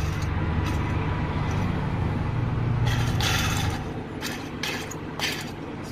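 Low rumble of road traffic that fades about four seconds in, with a brief rasping scrape just before it fades and then a few sharp metallic clicks from handling the tensioner pulley's parts.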